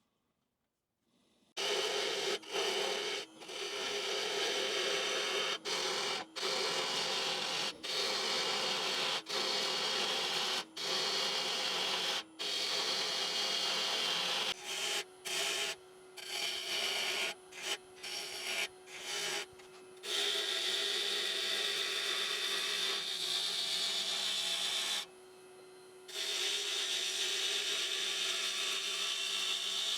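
Bowl gouge cutting a hard, spalted oak bowl blank spinning on a wood lathe: a steady rough scraping over the lathe's hum. It starts about a second and a half in and breaks off briefly many times as the tool lifts from the wood, with a longer break near the end.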